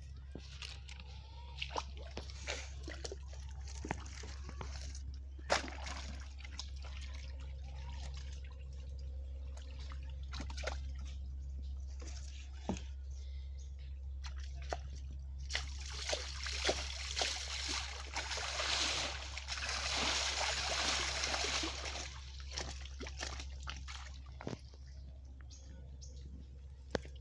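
Pond water splashing and sloshing as a person wades and works a fine-mesh drag net in shallow water, with scattered small splashes and clicks. The splashing grows heavy and continuous for several seconds past the middle, then falls back to intermittent splashes.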